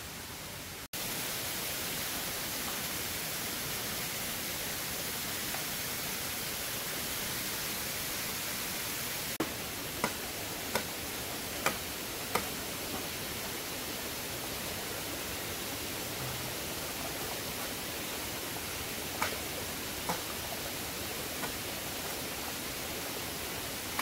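Steady rush of a waterfall, stepping up louder at a cut about a second in. A few sharp clicks or taps come in two short clusters, around the middle and again near the end.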